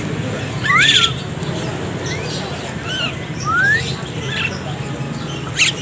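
A cage full of Javan mynas calling: short rising whistles again and again, cut through by a couple of harsh squawks, about a second in and near the end, over a steady low hum.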